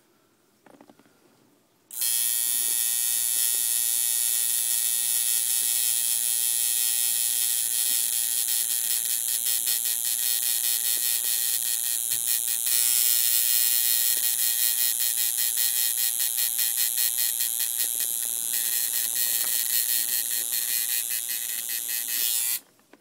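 Electric tattoo machine buzzing steadily on skin. It switches on abruptly about two seconds in and cuts off abruptly just before the end.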